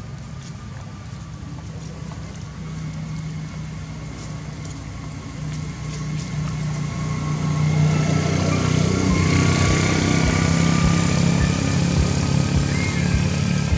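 A motor vehicle engine running with a steady low hum, growing louder about halfway through and staying loud.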